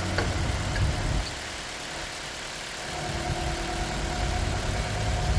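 Mitsubishi Colt 1.3-litre petrol four-cylinder engine idling smoothly on all four cylinders: the cylinder-4 misfire is cured now that the ignition coil has been replaced. The low rumble drops away briefly in the middle, then comes back.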